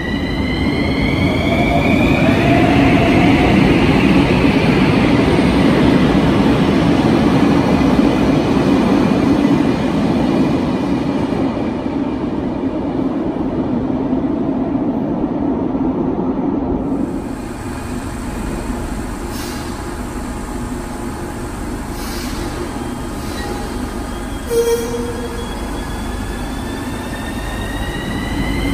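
Bucharest Metro train: the traction motors' whine rises in pitch as it pulls away, followed by a loud rumble of the cars running, which drops off about two thirds of the way through. A short tone sounds later, and near the end another rising motor whine begins.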